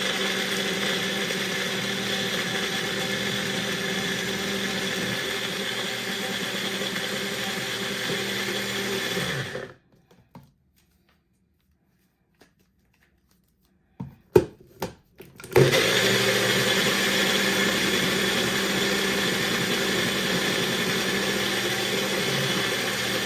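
Electric kitchen blender running steadily, grinding chopped lemongrass, galangal and garlic with warm water into a paste. It stops about ten seconds in, a few knocks follow, and it starts again about five seconds later and runs on.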